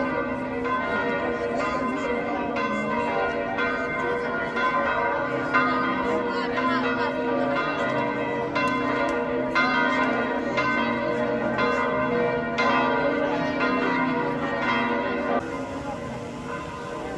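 Church bells of St Peter's Basilica pealing: many overlapping strikes and long, ringing tones. The ringing drops quieter near the end.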